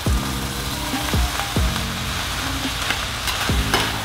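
Rice frying in garlic butter in a stainless-steel skillet on medium-high heat: a steady sizzle and crackle. A metal spatula tossing it scrapes and knocks against the pan a few times.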